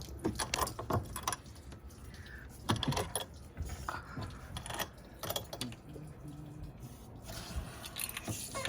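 Scattered light clicks, knocks and rattles of parts being handled in a jet ski's engine well.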